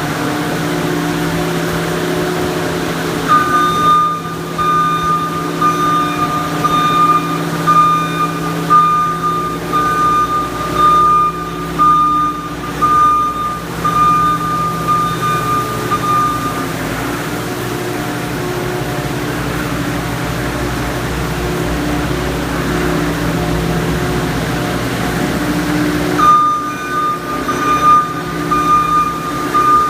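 CASE SR270 skid steer loader's diesel engine running steadily while it works a sweeper brush attachment. Its reversing alarm beeps repeatedly from a few seconds in until about halfway, stops, then starts again near the end.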